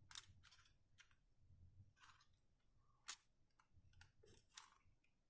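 Near silence with a few faint, sharp clicks of small parts of a power strip being handled and pushed together. The clearest click comes about three seconds in.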